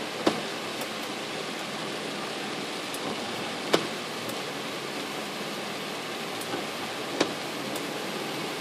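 Steady hiss of rain on a moving car, heard from inside the cabin, with three sharp taps about three and a half seconds apart.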